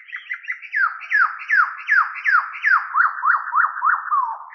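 Title-card sound effect: a run of about a dozen short whistle-like tones, each sliding down in pitch, about three a second, the early ones quicker.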